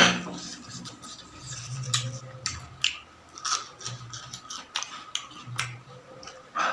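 Close-miked chewing of food, with irregular sharp crunches several times a second.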